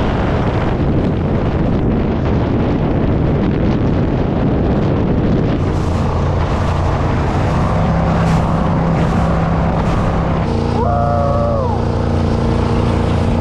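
1977 Spectra jet boat's freshly rebuilt 454 big-block Chevy V8 running hard at speed, with rushing water spray from the jet and wind on the microphone.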